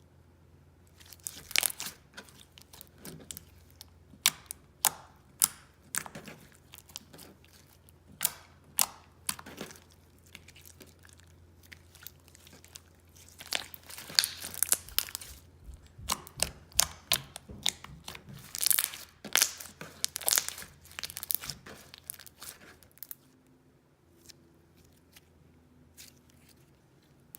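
Slime being squeezed, stretched and poked by hand, giving irregular sharp pops, clicks and crackles that come thickest in the middle and die away near the end.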